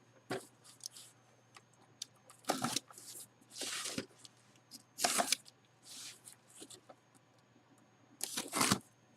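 Cardboard box and packaging being handled and opened: a series of short rustles, scrapes and tearing sounds, about seven in all, separated by quiet gaps.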